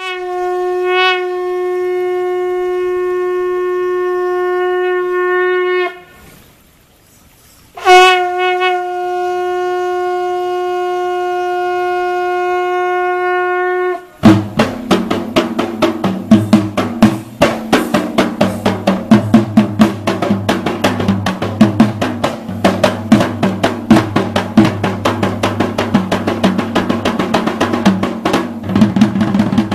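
A conch shell blown in two long, steady blasts of about six seconds each, with a short pause between them. About halfway through, fast hand drumming on a double-headed barrel drum (yak bera) starts and runs on in dense, rapid strokes.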